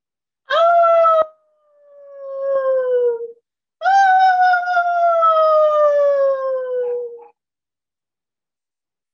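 A woman imitating a coyote howl with her voice: two long howls, each sliding slowly down in pitch, the second longer and steadier.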